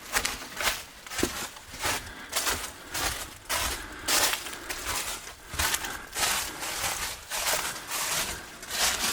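A hiker's footsteps on the forest floor at a steady walking pace, about two steps a second.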